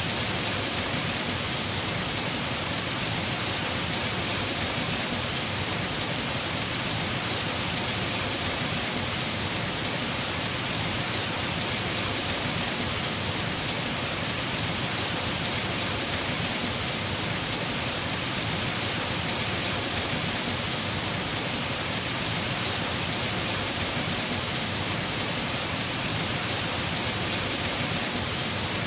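Heavy rain falling on a house roof in a steady, unbroken patter.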